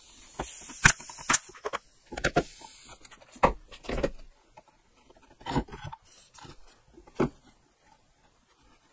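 Scattered light knocks and clicks of small wooden parts being handled, fitted together and set down on a plywood workbench. The knocks come at irregular intervals, with a quiet spell near the end.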